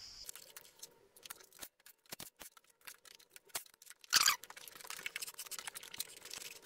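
Light clicks and scrapes of metal and plastic parts being handled as the grease-filled drive pinion is lifted out of a Yamaha T-Max 530's belt final drive and the toothed drive belt is pulled aside, with one louder scrape about four seconds in.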